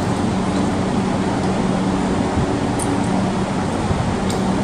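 Hankyu 8300-series electric train standing at the platform with its onboard equipment and air conditioning running: a steady hum with a constant low tone under an even rush of noise, echoing in the enclosed underground station.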